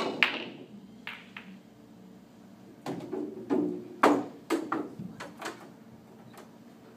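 Pool balls: a cue-ball strike and ball-on-ball clicks with a ball dropping into a pocket at the start, then, from about three seconds in, a run of sharp clacks as the balls knock together while being gathered into the rack.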